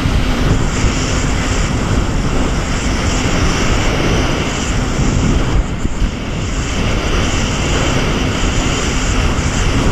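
Jet ski running at speed: a steady engine drone under the rush of water and spray from its wake.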